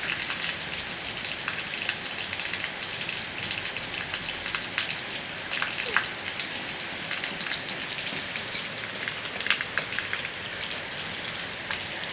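Steady rain falling, a constant hiss with many sharp drops spattering through it.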